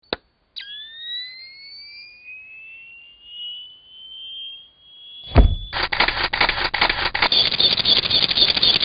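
Soundtrack sound effects: a click, then a whistling tone rising slowly in pitch for about four seconds, ended by a sharp bang about five seconds in, followed by a dense crackling hiss.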